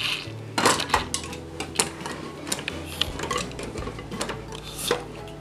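Handheld manual can opener being clamped onto a steel soup can and cranked, giving irregular metallic clicks and clinks.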